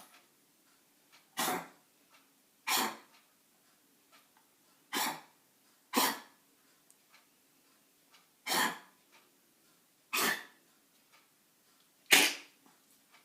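A pet animal coughing: seven short coughs, one to two and a half seconds apart.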